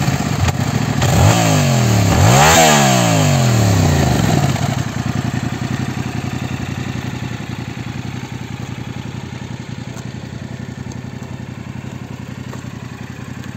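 2021 Yamaha MT-07's 689 cc parallel-twin engine with its 270-degree crank, through the stock exhaust, revved twice in quick succession about one and two and a half seconds in, the second rev the higher and louder. It then drops back to a steady idle.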